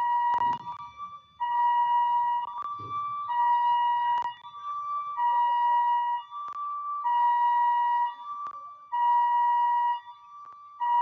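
Electronic alarm sounding a two-tone hi-lo pattern: a lower steady tone of about a second alternating with a fainter, slightly higher one, the cycle repeating about every two seconds. A few sharp clicks and, in the first three seconds, two brief low thuds sound over it.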